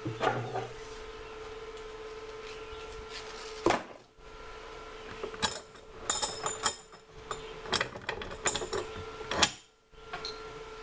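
Bench-work handling noises at a vise: a sharp knock about three and a half seconds in, then a run of light metallic clicks and scrapes as the cut stainless-braided line is handled, over a steady faint hum.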